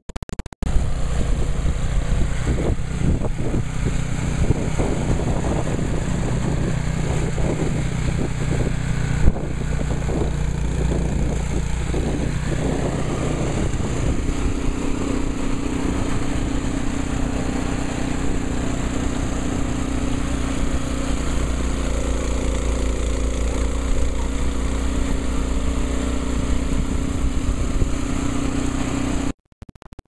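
Gasoline snowblower engine running steadily under load; its note shifts partway through.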